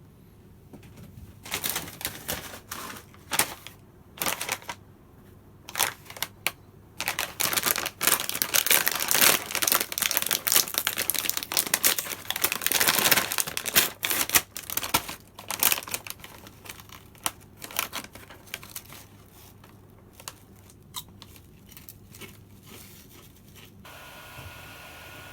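Clattering clicks of keys being typed on a computer keyboard, in uneven bursts that thicken into a rapid run in the middle and thin out toward the end.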